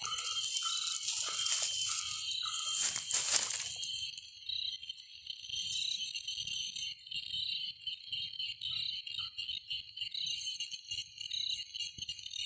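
Steady, high-pitched chorus of forest insects with a soft pulse about every second and a half. For the first four seconds loud rustling through leaves and brush covers it; after that only faint, irregular low scraping remains.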